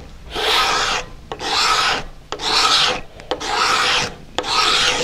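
Single-edge razor blade, sharpened with a small burr turned up on each side, used as a hand scraper on a wood block. It makes five even rasping strokes, about one a second.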